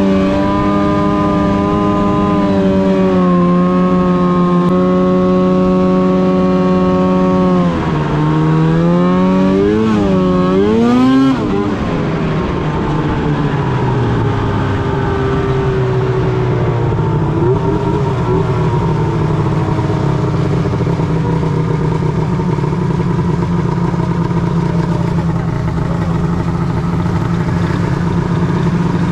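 Arctic Cat M8 snowmobile's two-stroke engine running at a steady pitch, then revving up and down a few times about 8 to 11 seconds in. The throttle then comes off, the pitch falls away, and the engine settles to an idle as the sled slows to a stop.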